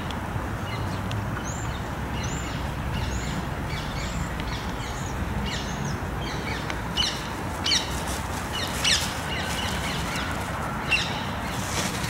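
A small bird calling over and over: short, high chirps that fall quickly in pitch, a few of them louder in the second half, over a steady low rustling background noise.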